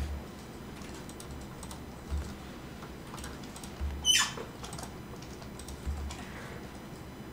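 Computer keyboard keys and mouse clicks tapping here and there, with one sharper click about four seconds in. A few dull low thumps come at roughly two-second intervals.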